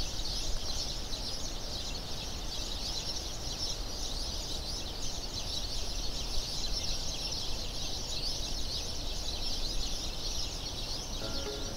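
Dense, steady chorus of many small birds chirping and twittering together, over a low rumble.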